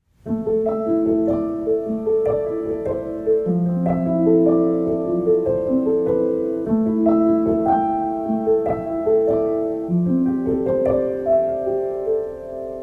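Background music: a gentle piano melody, note after note over held chords.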